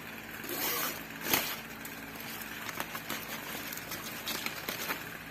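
Hands untying a satin ribbon on a styrofoam box: the ribbon rustles and slides while fingers make small clicks and taps on the box, with one sharper click about a second in. A faint steady hum lies underneath.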